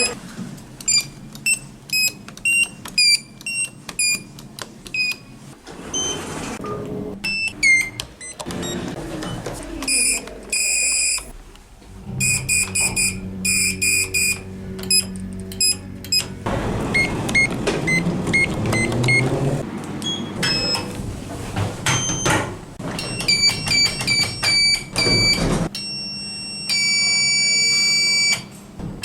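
A rapid string of electronic elevator signals from different lifts: short button beeps and chime tones, some with a quick pitch drop at the start, fast repeated beeping in the middle, and one long steady buzzer-like tone of about two seconds near the end.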